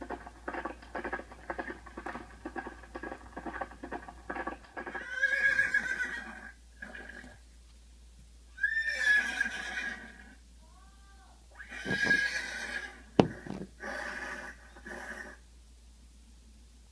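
Quick clip-clop of hooves, about four beats a second, for the first few seconds, then a horse whinnying several times. A single sharp click about two thirds of the way through is the loudest sound.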